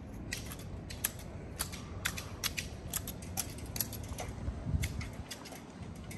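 Hand hedge shears snipping a shrub over and over in sharp, uneven clicks, about two to three a second. There is a low thump a little past the middle.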